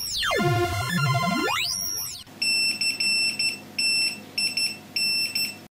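A comic sliding-pitch sound effect swoops down and back up twice, then gives way to a run of about six short, high electronic beeps a little over half a second apart that cut off suddenly.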